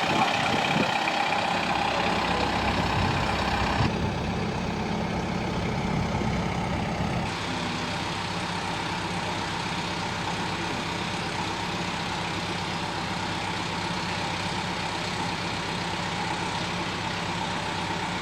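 Kubota tractor's diesel engine running steadily. The sound changes abruptly about four and seven seconds in, then settles a little quieter.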